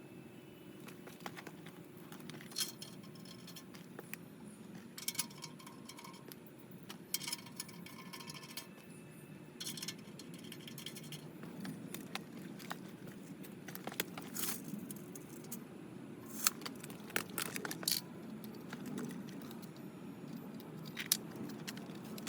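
Scattered light metallic clinks and knocks, several a few seconds apart, over a low steady hum.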